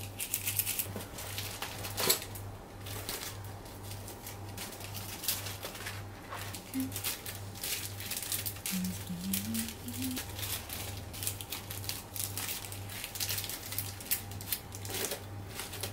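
Rustling and light clicking of small enamel keyrings on paper backing cards being handled and dropped into plastic crates, many short irregular rustles and clicks.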